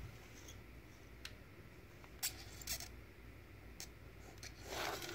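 Hard plastic CGC comic slabs being handled in a cardboard box: a few faint scattered clicks, then a louder scraping rustle near the end as a slab is shifted.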